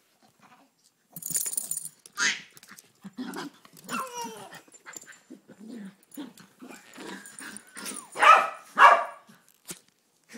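Small dogs barking in play, in a string of short bursts, with the two loudest barks close together near the end.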